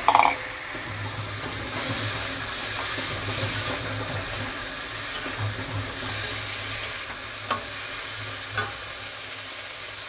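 Raw green banana and potato pieces sizzling steadily in hot oil in a metal kadai, stirred with a metal spatula that scrapes and taps against the pan a few times. A brief loud clank right at the start.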